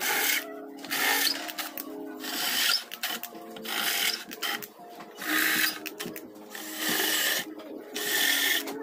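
Rasping strokes of a tool shaving down material so that a bolt will fit, about one stroke a second with short pauses, over background music.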